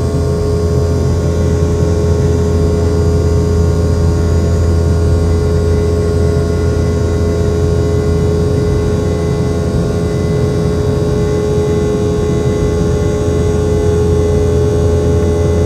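Steady cabin drone of a Boeing 717's rear-mounted Rolls-Royce BR715 turbofans: a deep hum with a held mid-pitched tone and fainter whining tones over a rushing noise, unchanging throughout.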